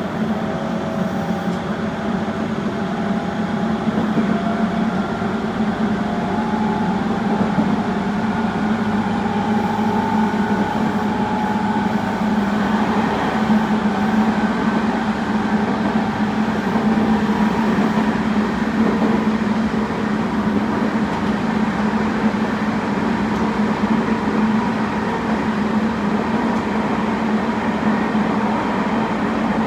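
Tobu 20400 series electric train running, its Toyo Denki GTO inverter and traction motors whining in several tones that rise steadily in pitch over the first dozen seconds as it accelerates, then running on steadily over a constant hum and wheel-on-rail noise.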